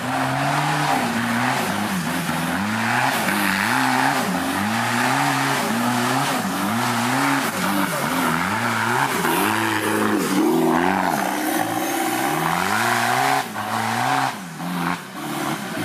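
Off-road trial 4x4's engine revving up and dropping back over and over, about once a second, under full throttle on a steep uphill climb, with a rushing noise of tyres spinning and scrabbling in the dirt. The engine noise falls off twice near the end.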